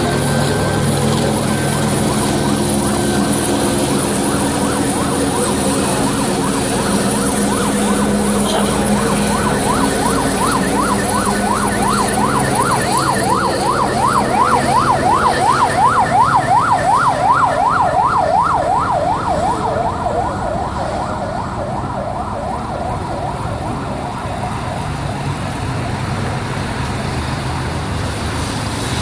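Emergency-vehicle siren yelping, a fast rising and falling wail about three times a second, loudest in the middle of the stretch, over steady engine and traffic noise.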